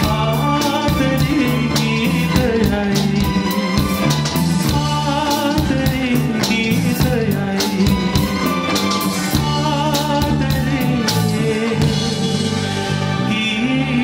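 Live band playing a Sinhala pop song: a drum kit keeping a steady beat under keyboards and a wavering lead melody line.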